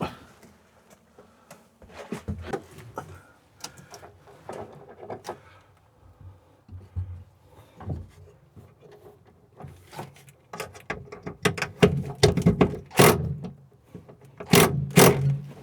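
Irregular clicks, knocks and scrapes of hands and tools working on a boat's dash while the old GPS chartplotter unit is taken out. They come sparsely at first and grow denser and louder in the last few seconds.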